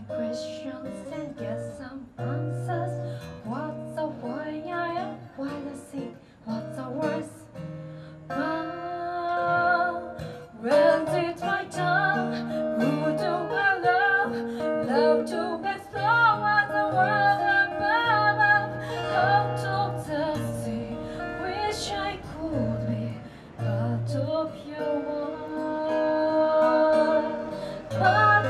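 A woman singing a song into a microphone, accompanied by a plucked and strummed acoustic guitar. The music gets louder about eleven seconds in.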